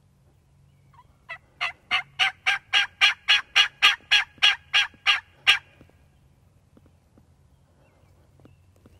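A long run of about fifteen raspy turkey yelps, evenly spaced at roughly three to four a second, building in loudness over the first few notes and then holding loud until they stop about two-thirds of the way through.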